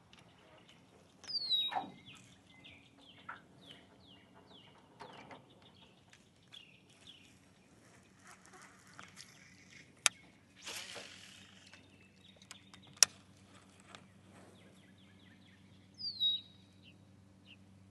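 Birds chirping outdoors, with many short chirps and a louder falling call twice, once near the start and once near the end. Two sharp clicks come in the middle, and a faint low steady hum sets in during the second half.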